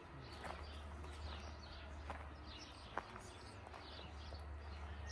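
Songbirds chirping and singing: many short, quick chirps, faint. A few sharp taps, the clearest about three seconds in, over a steady low rumble.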